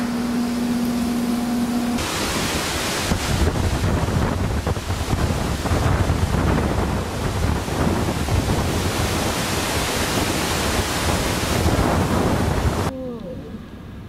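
Hurricane-force wind and driving rain blasting over the microphone, a loud, even rushing noise that starts abruptly about two seconds in and cuts off suddenly near the end. It is preceded by a steadier hum.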